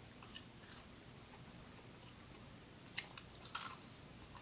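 Faint eating sounds of a breaded fish stick being bitten off a fork and chewed: small scattered clicks, one sharp click about three seconds in, then a short crunchy noise just after.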